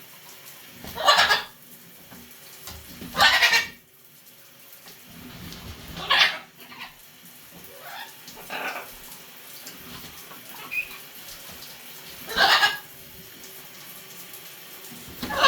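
A macaw giving loud, harsh squawks, about six in all, each roughly half a second long and a few seconds apart.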